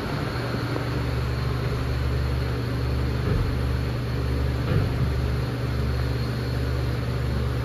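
A steady low mechanical hum with a faint high whine above it, as of machinery running in a closed metal compartment.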